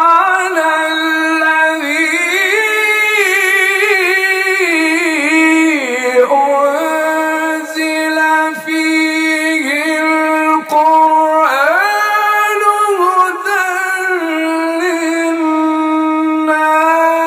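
A man reciting the Quran in melodic tajweed style, unaccompanied, holding long notes and sliding up and down in ornamented runs, with a few brief breaks.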